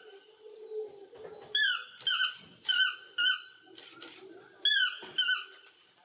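A toucan calling: three pairs of short, high yelping calls, each one falling in pitch.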